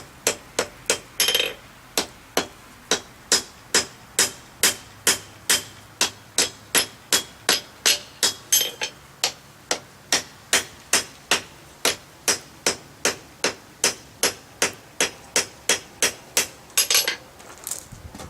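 Hand hammer striking white-hot steel on an anvil in a steady rhythm of about two to three blows a second, forge-welding the scarfed joint of a pair of tong reins. A short longer, noisier burst comes near the end.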